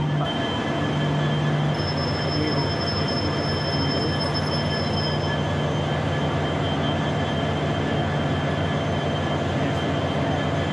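Stationary train idling at the station: a steady engine hum with a few faint steady tones above it, and a thin high whine for a few seconds starting about two seconds in.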